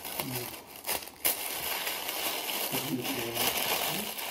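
Tissue paper rustling and crinkling as it is pulled out and crumpled by hand, with a few sharper crackles about a second in.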